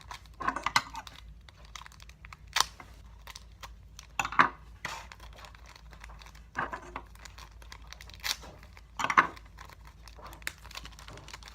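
Packaging crinkling, rustling and tearing in irregular bursts as two foam darts are worked out of a Nerf blaster's box packaging, with half a dozen sharper crackles spread through.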